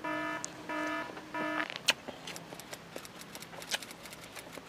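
Electronic beeper sounding three short steady beeps of about half a second each, all on the same pitch, in the first second and a half, followed by faint scattered clicks.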